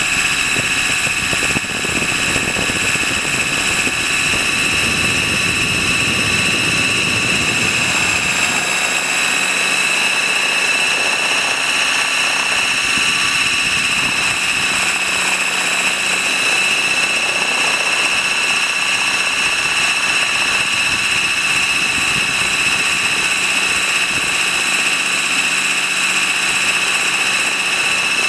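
A T-Rex 600 RC helicopter in flight, heard from a camera mounted on its landing skid: a steady high whine with an unchanging pitch, over rotor noise. A low rumble under it drops away about eight seconds in.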